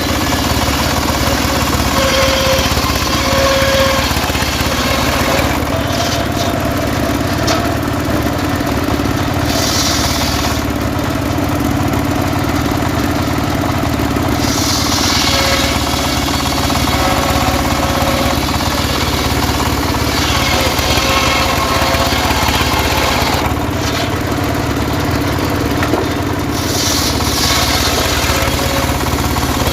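Engine of a homemade sawmill running steadily while sawing sengon logs, with a higher hiss that swells and fades every five seconds or so.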